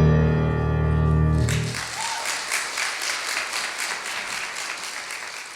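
The accompaniment's held final chord cuts off about a second and a half in. A congregation's applause then breaks out and fades away.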